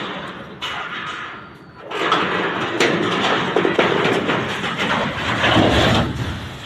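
Earthquake shaking: heavy rattling and banging with a low rumble, loudest from about two seconds in and fading near the end.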